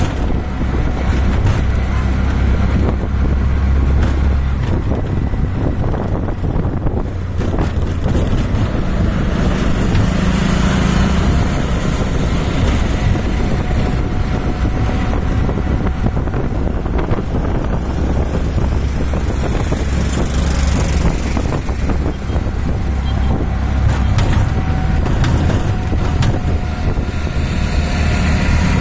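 An auto rickshaw's engine running as it drives through traffic, heard from inside its open-sided passenger cabin along with road and wind noise. The low engine drone swells and eases several times.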